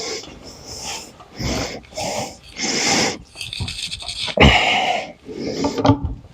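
A man breathing hard and grunting with effort, in irregular puffs, as he strains to force a stuck window pane into its frame.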